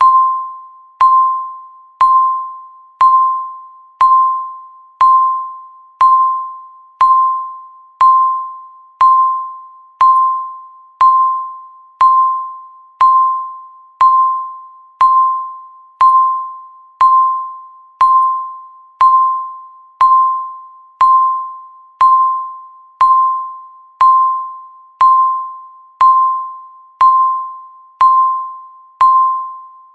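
Countdown timer's electronic beep: a single clear tone struck once every second, each one starting sharply and fading away before the next, ticking off the seconds left.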